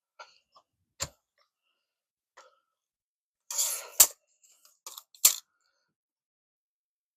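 Tape measure being worked against a sawn board: scattered sharp clicks, and a short rasp about three and a half seconds in that ends in a loud clack, like the blade running back into its case, with another click or two soon after.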